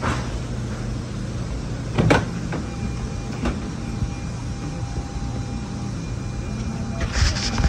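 A car door clunks about two seconds in, over a steady low hum, with a faint steady tone from about three seconds in and a short rustle near the end.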